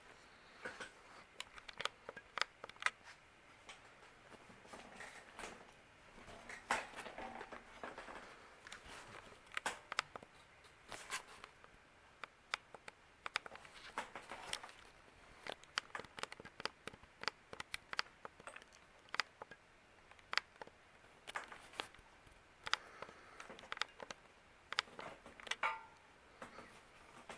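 Fasco Gulf Stream ceiling fan running on low, with many light, irregular clicks and ticks over a faint background hum.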